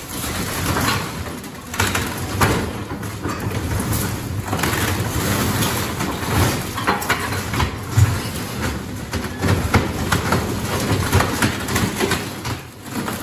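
Excavator tearing into wooden framing and debris, with frequent cracks, snaps and crashes of splintering wood over the steady running of its diesel engine.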